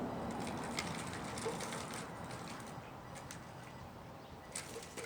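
Small motors and gearing of a radio-controlled model machine running, a rough mechanical whir with scattered clicks that grows fainter over a few seconds.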